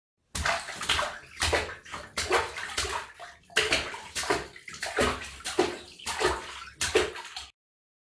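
Water splashing and sloshing in a rapid, uneven series of splashes, about two to three a second, for about seven seconds, then cutting off suddenly.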